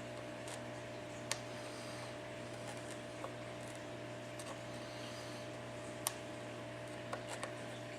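A handful of faint, sharp clicks, about five spread irregularly, as small tools work the LCD ribbon cable connectors off an iPad 4's board, over a steady electrical hum.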